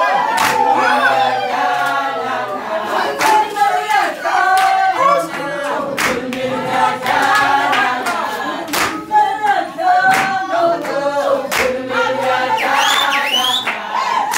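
A group of women singing together, with hand claps through the song. High rising cries break out over the singing near the end.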